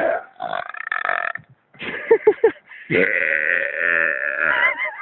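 A man belching loudly and deliberately: a long drawn-out belch through the first second and a half, a few short quick sounds around two seconds in, then another long belch of nearly two seconds from about three seconds in.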